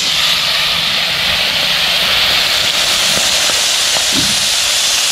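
Small whole fish frying in hot oil in a wok, heard close up as a loud, steady sizzle.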